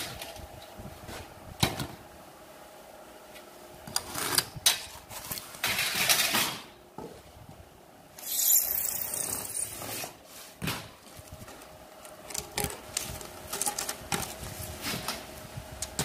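Foil-faced foam duct panels being handled and worked by hand: irregular scrapes, rubs and light knocks, with a longer high scraping rub about eight seconds in lasting around two seconds. A faint steady hum runs underneath.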